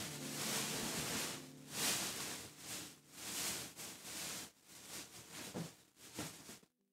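Rustling and handling noise in uneven swells that rise and fade, then cut off suddenly near the end.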